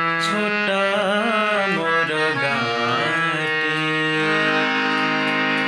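Harmonium played on its keys: held reed notes stepping through a melody, settling into a long sustained note about four seconds in.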